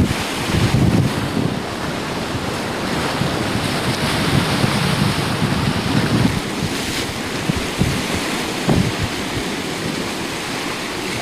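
Wind buffeting the microphone in irregular gusts over the steady rush of sea surf.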